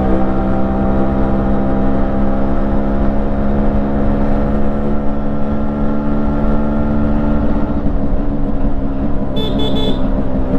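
Freshly rebuilt 132cc single-cylinder two-stroke engine of a Yamaha RX135 motorcycle running through its stock exhaust at a steady speed. Its pitch eases down slightly, then turns rougher and less even about eight seconds in. A short high-pitched pulsing sound cuts in briefly near the end.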